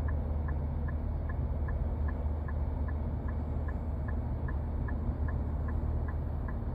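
Car idling with a steady low hum while the indicator flasher ticks evenly, about two and a half clicks a second.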